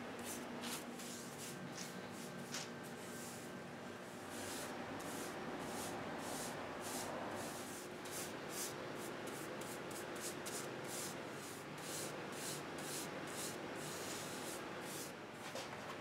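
Hand rubbing along the teak frame of a chair during finishing: a long run of quick, even hissing strokes, about two a second.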